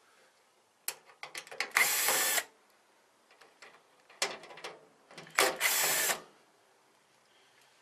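Power screwdriver backing out the mounting screws of a fireplace control board: two steady motor runs of under a second, each preceded by a cluster of clicks and stuttering short starts.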